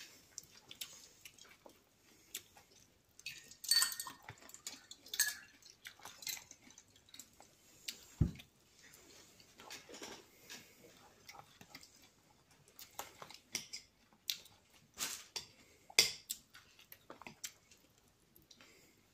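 Salad being eaten: a fork scraping and clinking in a glass bowl and mouthfuls being chewed, as irregular clicks and short scrapes, with a dull knock about eight seconds in.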